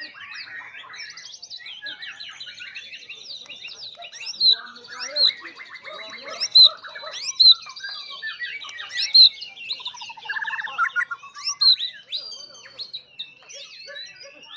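Several white-rumped shamas singing over one another in a dense, varied song, with loud sharp whistles breaking through about half a dozen times.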